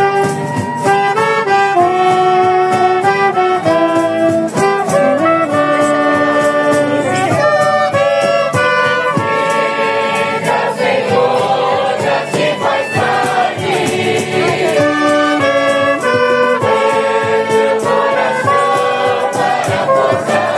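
A small street band of saxophones, trumpet and acoustic guitars playing a hymn melody in held notes, with voices singing along.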